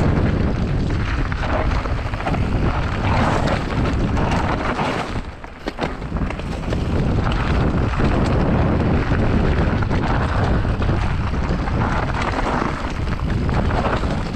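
Mountain bike descending a dirt trail: wind rushing over the microphone, tyres running over loose dirt and stones, and the bike rattling over bumps. It goes briefly quieter about five seconds in.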